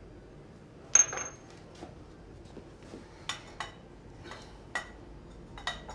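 Steel tools and workpieces knocking against a milling machine's steel vise and table: one sharp metal clink with a short high ring about a second in, then four or five lighter clinks and taps.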